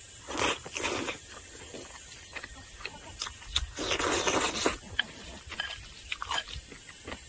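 A person eating with their mouth close to the microphone: chewing and smacking on a bite of meat, then a long slurp of noodles about four seconds in.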